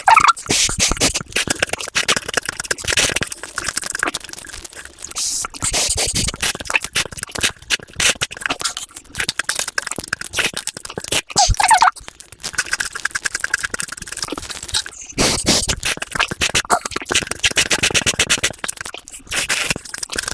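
Close-miked eating sounds sped up to several times normal speed: a rapid, dense run of crunching, chewing and lip-smacking clicks.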